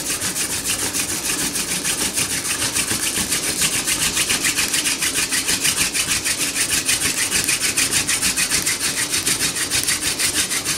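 Horseweed hand-drill spindle spun back and forth between the palms, grinding in a wooden hearthboard socket: a steady rubbing in a fast, even rhythm of strokes as friction builds hot wood dust toward an ember.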